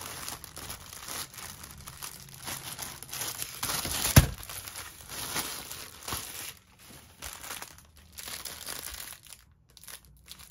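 Clear plastic bags of diamond-painting drills crinkling and rustling as they are handled, with one sharp tap about four seconds in. The rustling thins out and grows quieter in the second half.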